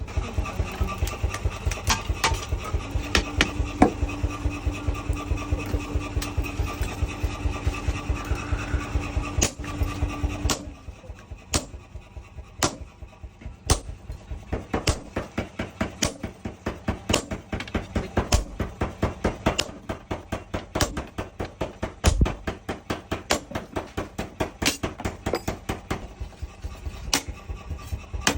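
Steel being forged with a hammer: a long run of rapid, regular blows, about three or four a second. A steady hum runs under the blows for the first third and then stops.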